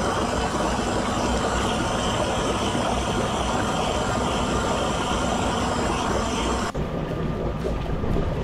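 Whirlpool tub jets churning the water, with water pouring in from the filler: a steady rush with a low rumble underneath. Nearly seven seconds in, the hiss cuts off abruptly and the rush goes on duller.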